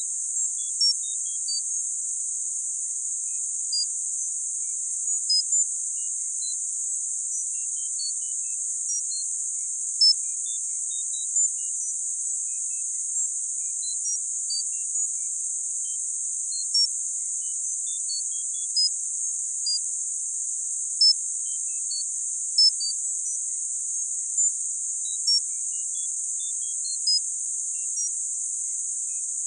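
Tinnitus sound-therapy track: a steady, high-pitched band of hiss with short, high tone pips scattered at random, about two a second.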